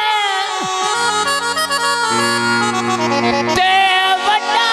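Live Punjabi folk music: the male singer's line glides down and ends in the first second, then the accompaniment plays held chords. A sharp stroke comes about three and a half seconds in, and the singing starts again near the end.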